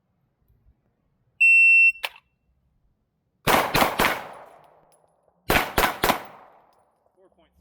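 A shot timer's single steady beep, then a handgun fired three times in quick succession, a pause of about a second and a half, and three more quick shots, each group trailing off in echo: a draw-and-fire, move-to-kneeling, fire-again drill.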